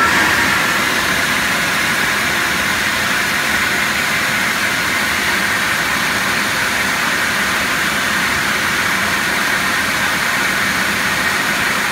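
Air flow bench running flat out, a loud steady rush of air as its motors pull about 225 cfm through the ported exhaust port of a Ford Barra six-cylinder head.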